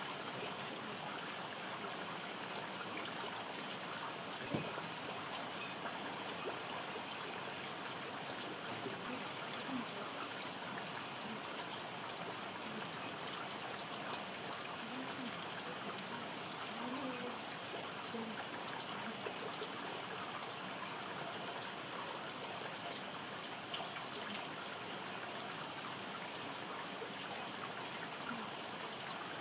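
Steady rain falling and dripping, with one brief knock about four and a half seconds in.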